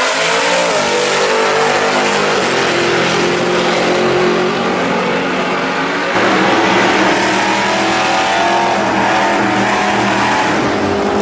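Two drag-racing cars launching off the line at full throttle, engines revving up and then pulling away down the strip. About six seconds in the sound changes abruptly to the engines of another pair of drag cars running at the starting line.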